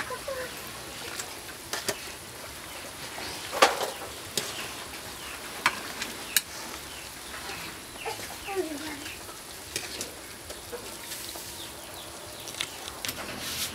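Metal ladle scooping soup from a boiling pot, clinking sharply against the pot and bowl several times, the loudest knock a few seconds in, over the steady bubbling hiss of the soup at the boil. A hen clucks faintly now and then.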